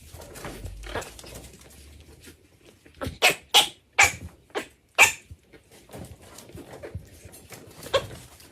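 A dog barking: four short, sharp barks in quick succession, a few seconds in.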